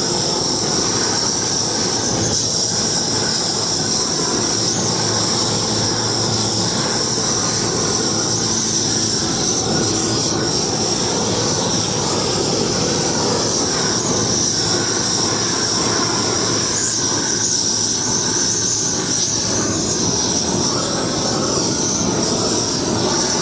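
Handheld propane weed-burner torch running with the gas at full: a steady roar of flame with a high, even hiss from the gas jet.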